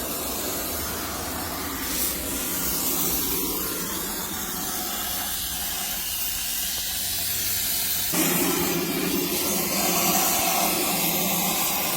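Brazing torch flame hissing steadily while it heats a refrigerant line joint, with the sound growing fuller about eight seconds in.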